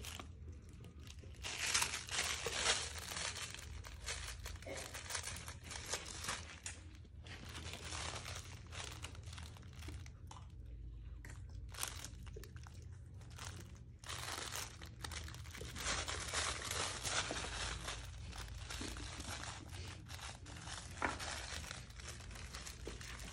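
Puppies playing with plush toys on a tile floor: irregular scratchy rustling and crinkling as the toys are chewed and tugged, with scattered clicks. There is a steady low hum underneath.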